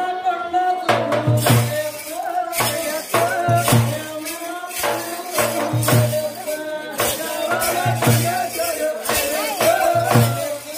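Teenmar drumming on dappu frame drums: loud, sharp strokes and deep thuds in a fast repeating pattern, with a wavering high melody line over the drums.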